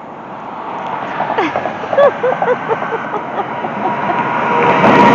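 Highway traffic: a vehicle approaching on the road over the bridge, growing steadily louder and nearly passing by the end. A run of short chirps sounds about halfway through.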